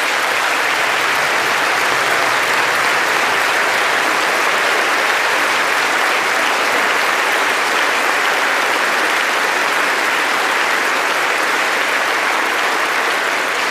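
Long, steady applause from a large audience filling a chamber, after a line of a speech.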